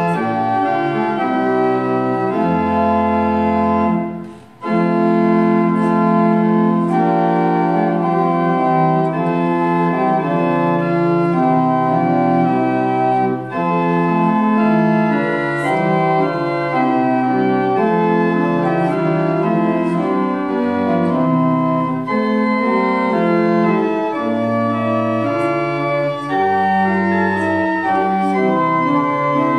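Church organ playing a hymn in slow, sustained chords that change every second or so, with a short break about four seconds in.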